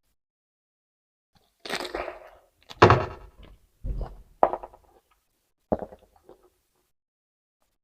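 Crisp crunches of raw vegetables being bitten and chewed close to the microphone: about five crunches spaced roughly a second apart, beginning a little over a second and a half in, the loudest near the middle.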